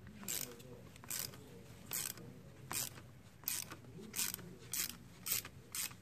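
Ratchet wrench clicking in short strokes, about one a second and a little quicker near the end, as it turns the forcing screw of a three-jaw gear puller drawing the field coil off a car air-conditioning compressor.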